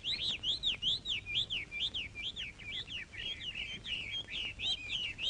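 A bird chirping: a fast, even run of short, high, arched whistled notes, about four a second.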